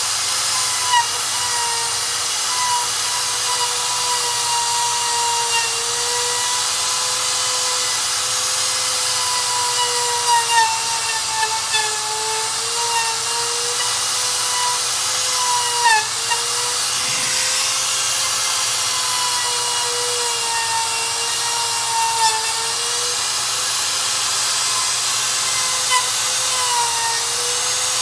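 Electric router running continuously with a high, steady whine, its pitch sagging briefly several times as the bit bites into the rubber lugs of a lawnmower tire.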